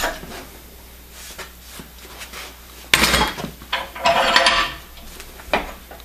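Metal clattering and scraping as a bronze soft jaw is handled against a cast-iron Record No. 8 bench vise: a sharp clank about three seconds in, a longer scrape about a second later, and a short knock near the end.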